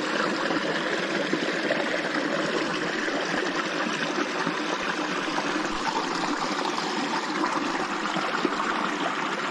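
Creek water running steadily over a small waterfall.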